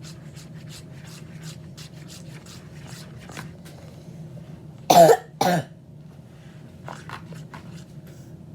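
A person coughing twice, loudly, about five seconds in. Before that, only faint short clicks.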